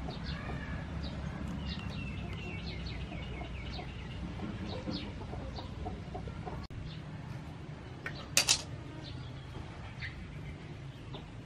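Chickens clucking and birds calling in short, scattered calls over a steady low background, with a sharp double click, the loudest sound, about eight seconds in.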